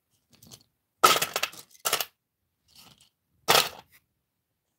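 Small plastic toy animal figures clattering as they are dropped into a round plastic compartment tray, in three bursts: the longest about a second in, a short one near two seconds, and another a little past three and a half seconds.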